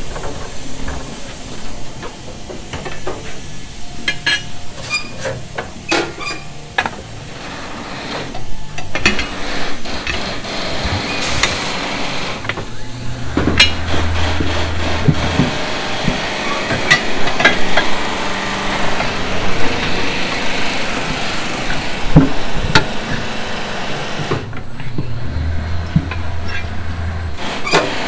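Tyre-changer machine at work fitting a truck tyre onto a steel wheel: repeated clanks and knocks of metal and rubber, with the turntable motor running twice in two-second spells, about halfway through and near the end.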